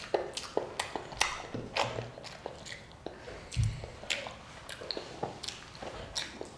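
A young child chewing a mouthful of broccoli close to the microphone: a quick, irregular run of wet clicks from her mouth, with one dull thump about halfway through.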